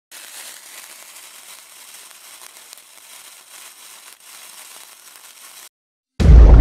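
Sound effect of a lit fuse: a steady fizzing crackle with a few sharp cracks. It cuts off shortly before the end, and after a brief silence loud bass-heavy music starts suddenly.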